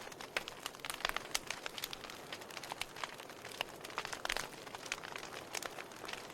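Wood fire burning in a fireplace, a soft steady hiss under irregular sharp crackles and pops, several a second.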